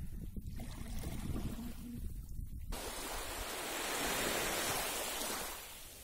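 Small waves of a calm sea washing onto a sandy shore: a rushing wash starts about halfway through, swells and fades near the end, over a low wind rumble on the microphone.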